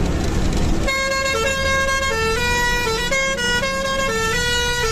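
Bus's musical melody horn playing a repeating tune of held notes that step up and down in pitch, starting about a second in, over the bus's engine and road noise.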